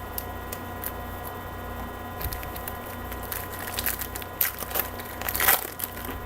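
A wrapper on a pack of trading cards being torn open and crinkled, with the cards being handled: scattered short crackles and rustles that grow denser after about two seconds.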